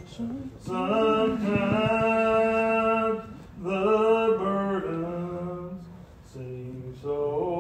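A man singing an unaccompanied hymn in the slow Old Regular Baptist manner, drawing each syllable out into long held notes, in three phrases with short breaks between them.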